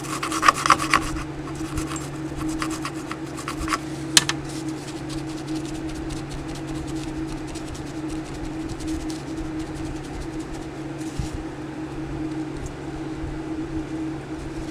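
Quick scrubbing strokes on a circuit board, cleaning off sticky solder flux around a freshly soldered surface-mount RAM chip. The strokes come in a short flurry at the start and again about four seconds in, over a steady low hum.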